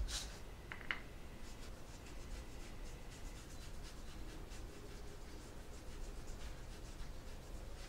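Small paintbrush stroking back and forth over a spray-painted model roof panel, a faint repeated scratchy brushing as paint goes on in a light coat. A couple of faint ticks about a second in.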